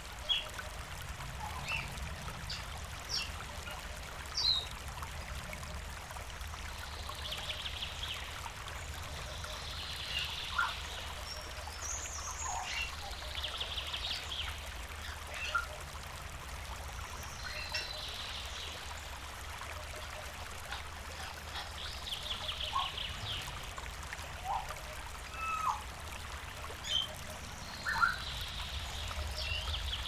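River water flowing and trickling steadily, with birds calling over it: short sharp whistled notes scattered throughout and a rapid trill that comes back every few seconds.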